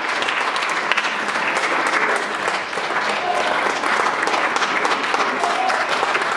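A small audience applauding, steady dense clapping throughout.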